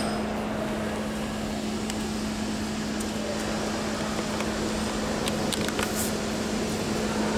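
Subway station ambience: a steady low hum over an even wash of noise, with a few faint clicks a little past the middle.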